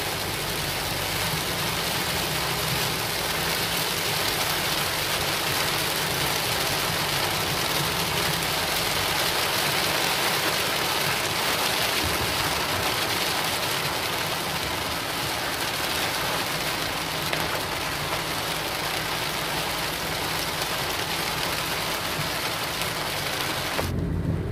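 Heavy rain hissing steadily on a car's roof and windshield, heard from inside the cabin, over the low hum of the engine and wet-road tyre noise. Near the end the rain noise cuts off abruptly, leaving mostly the low engine sound.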